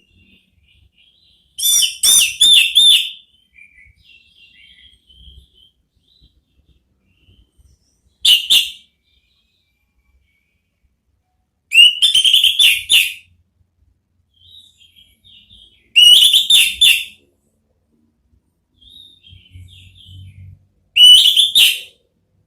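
Orange-headed thrush (anis merah) singing in the loud, open 'ngeplong' style: five clear, loud song phrases of about a second each, several seconds apart, with faint soft twittering between them.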